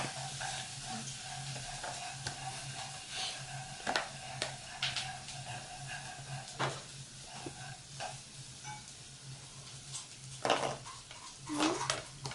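Cardboard jigsaw puzzle pieces being handled on a wooden table: scattered light taps, clicks and scrapes as pieces are picked up, slid and pressed into place, with a slightly louder cluster about ten seconds in. A steady low hum runs underneath.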